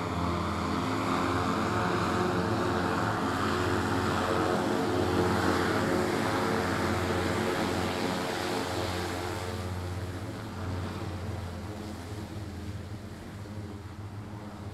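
Electric propellers of an Archer eVTOL aircraft, twelve rotors on wing booms, humming as it comes in low and hovers down to land: a steady multi-tone hum under a rushing noise. About ten seconds in the rushing fades and the whole sound gets quieter.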